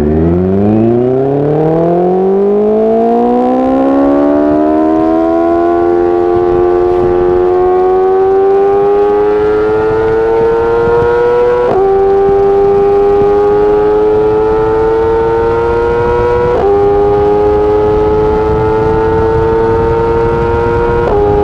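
BMW S1000RR's inline-four engine pulling hard: its note climbs steeply over the first few seconds, then keeps rising slowly with three short dips in pitch as it shifts up through the gears.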